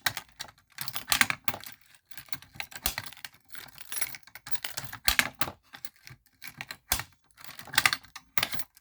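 A fire alarm pull station being pulled and handled: a run of irregular clicks and light metallic rattles from its handle and mechanism.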